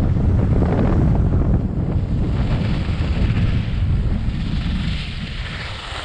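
Wind buffeting the microphone of a camera skiing downhill: a loud, steady low rumble, with a higher hiss of skis sliding over snow mixed in. It eases a little near the end.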